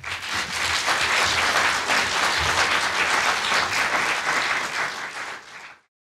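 Audience applauding, with many hands clapping in a dense, even wash that fades and cuts off near the end.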